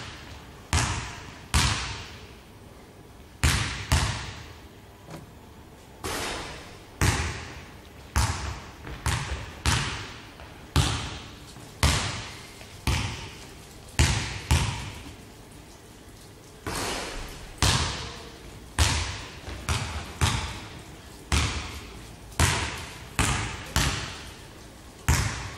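Basketball dribbled on a hardwood gym floor: sharp bounces at an uneven pace of one or two a second, each ringing briefly in the big hall, with a couple of short pauses.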